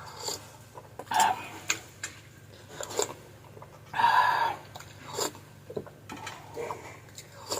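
Eating sounds: a spoon clinking several times against a bowl of clam broth, with one longer, louder sip or slurp about four seconds in.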